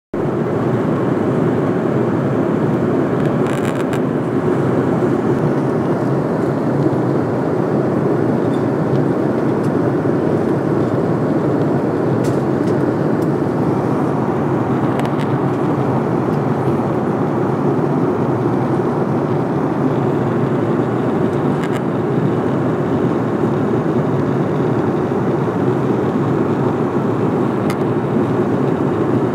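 Steady cabin noise of an aeroplane in flight, an even rushing hum heard from inside the cabin, with a few faint ticks.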